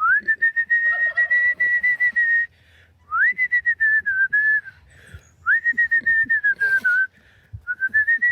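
A woman whistling in four long phrases. Each phrase sweeps up into a high held note and then slides gently down.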